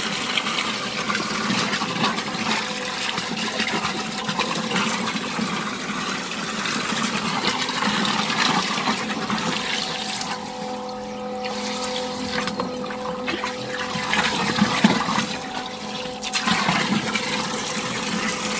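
A steady rush of water jetting from the outlet hose of a 60 V brushless multistage submersible solar pump and splashing into a barrel of water, running at full flow. A faint steady tone lies under the splashing, and the rush sounds duller for a few seconds midway.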